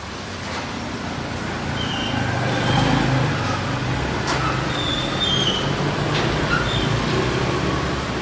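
Heavy rain falling as a dense, steady hiss, with a low rumble that swells from about two seconds in and a few short high chirps over it.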